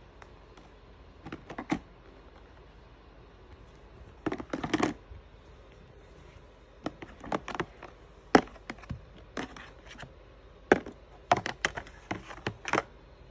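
Hard plastic clicks and knocks in irregular clusters as the white plastic sorting trays of a yellow Lego Education storage bin are handled, lifted out and set down.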